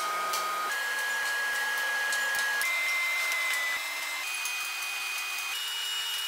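Background music: sustained synth notes stepping upward in pitch every second or two over a steady hiss.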